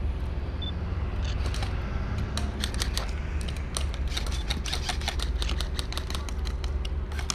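Airsoft guns firing in a game: rapid, irregular clicks of shots, starting about a second in and coming thick and fast, over a steady low rumble.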